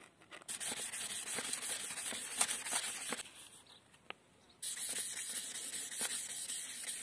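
Fine-grit sandpaper rubbed by hand back and forth along the rusty metal bar of a nail puller, a scratchy hiss. It comes in two bouts of about three seconds each, with a short pause between.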